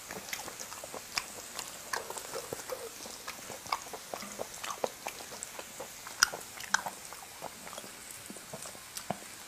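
A person chewing food with the mouth open, making many small, irregular wet smacks and clicks, with one sharper click a little past the middle.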